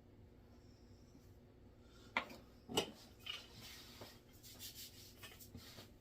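Near silence, then two knocks about two seconds in, followed by soft rubbing and scraping as yeasted bread dough is handled on a floured table.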